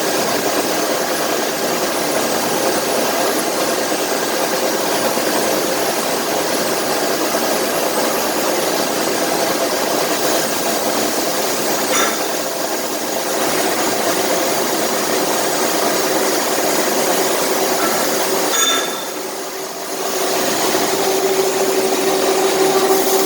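160 mm face-milling cutter on a CNC mill cutting 45C steel: a steady cutting noise that dips briefly twice, about twelve and nineteen seconds in. Near the end a steady hum comes up under it.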